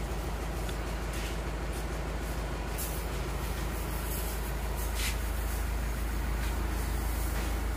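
Rice mill machinery (hullers and grain elevators) running with a steady low drone.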